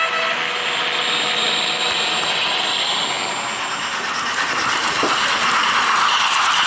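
Model Roco X2800 railcar's LokSound decoder playing its diesel railcar engine sound, running steadily, with the hiss and rattle of model train wheels on the track. The rattle grows louder over the last couple of seconds.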